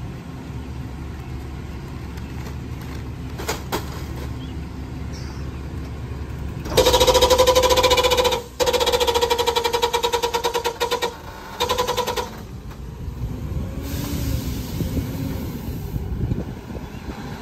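McNeilus rear-loader garbage truck idling, then its hydraulic packer running a compaction cycle from about seven seconds in: the engine speeds up and the hydraulics whine with a fast rhythmic chatter. It breaks off briefly twice, then drops back to idle about twelve seconds in.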